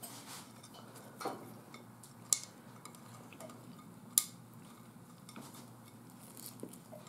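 Quiet handling of a ceramic plate while a pizza slice is picked at by hand, with three sharp light clicks against the plate about a second or two apart.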